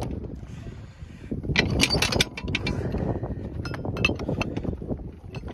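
Steel anchor chain clinking and clanking over the deck fittings and windlass as a manual windlass handle is worked, taking up the chain to dig the anchor in. The clanks come in irregular clusters, thickest about two seconds in and again near four seconds.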